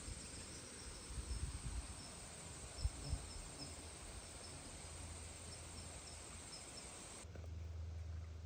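Steady high-pitched trilling of late-summer insects over a low wind rumble on the microphone, with a few soft bumps. About seven seconds in the insect sound cuts off abruptly, leaving only a steady low hum.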